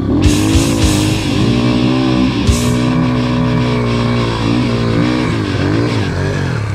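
Yamaha TTR125 dirt bike's single-cylinder four-stroke engine running under way, its pitch dipping and climbing back several times.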